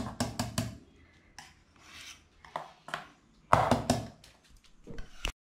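Wire whisk beating a thick chocolate cream in a metal saucepan, clicking and scraping against the pan. The clicks come in quick runs: one at the start, one in the middle and a few more near the end.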